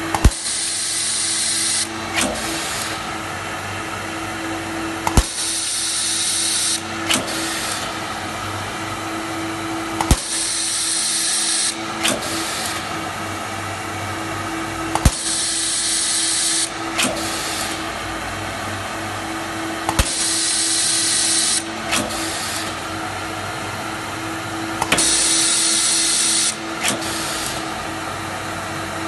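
Taylor CNC capacitor-discharge stud welder working through its automatic cycle about every five seconds: a sharp crack as a stud is welded, about a second and a half of high hiss, and a lighter click some two seconds after the crack, over a steady machine hum.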